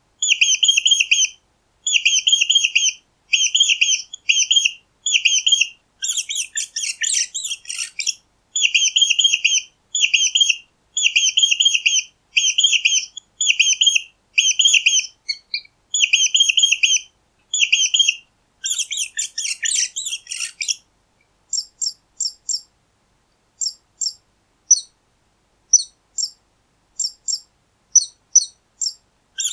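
Mice squeaking: trains of rapid high squeaks about a second long, repeated with short silent gaps. Scratchier chattering bursts come about six seconds in and again near twenty seconds, and toward the end there are only short single chirps.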